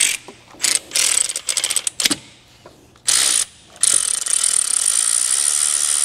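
Hand ratchet with a Torx T40 bit clicking as the timing belt tensioner bolt on a Ford 1.6L EcoBoost engine is backed out: a few short runs of clicks, then a long run of fast clicking from about four seconds in.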